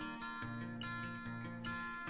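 Background music led by a strummed acoustic guitar, chords changing every half second or so.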